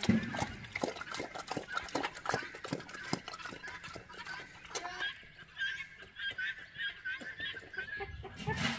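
Pigs eating at a trough: a rapid run of wet chewing and snuffling clicks for the first five seconds or so. After that, short high bird calls repeat about four times a second over quieter chewing.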